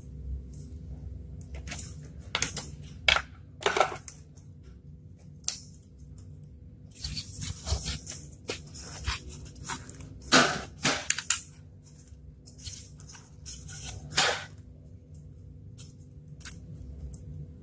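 Styrofoam pieces being handled, pressed and rubbed together on a tabletop: irregular scrapes, crunches and knocks, with a small battery pushed into the foam.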